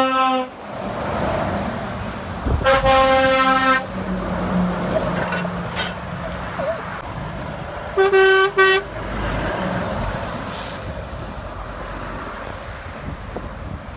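Passing lorries sounding their horns: a short blast right at the start, a long steady blast about three seconds in, and a shorter blast of several tones about eight seconds in. Diesel engine and tyre noise of the passing trucks fills the gaps.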